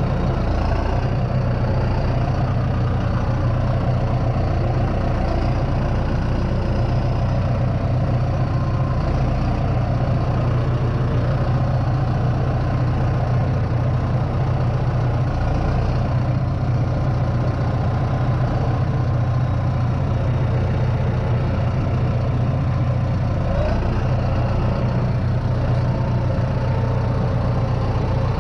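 A heavy engine running steadily at a constant speed, with a strong low hum and no pauses.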